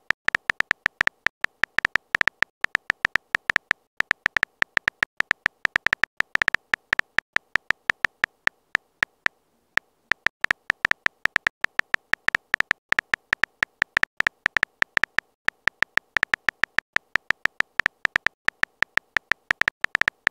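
Phone keyboard typing sound effect from a texting-story app: a rapid run of short, sharp key clicks, several per second, with two brief pauses about four and nine seconds in.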